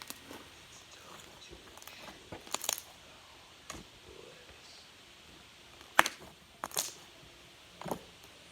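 A handful of sharp clicks and taps from small objects being handled, the loudest about six seconds in.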